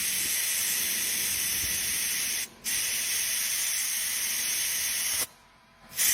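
A pressurised spray hissing in long bursts during carburetor cleaning. It cuts off briefly about two and a half seconds in, stops again for most of a second near the end, then starts again.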